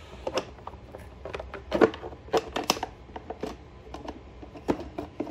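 Plastic air cleaner cover being fitted back onto the generator engine by hand: a series of scattered clicks and knocks, the loudest about two seconds in.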